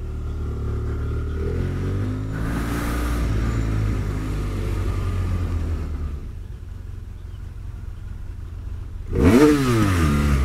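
Motorcycle engine pulling away and gaining speed, with wind rushing over the helmet microphone, then easing off to a low steady run. About nine seconds in the throttle is blipped once: the revs shoot up and drop straight back, the loudest sound here.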